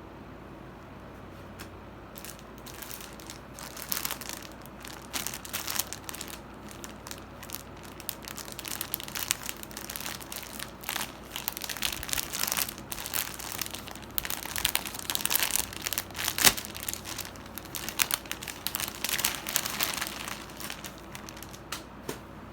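Packaging crinkling and rustling as it is handled, in irregular bursts starting about two seconds in, over a faint steady low hum.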